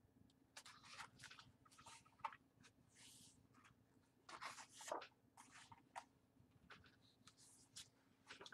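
Faint rustling and soft flicks as the paper pages of a hardcover picture book are turned and the book is handled, loudest about halfway through.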